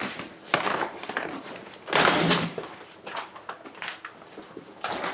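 A plastic shopping bag and a cardboard box rustling and bumping as they are picked up and carried, with the loudest crinkling about two seconds in.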